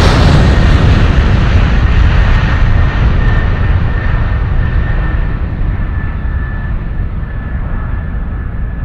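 Loud, steady low rumble and rushing noise that slowly eases, with a faint thin high whine from about three seconds in.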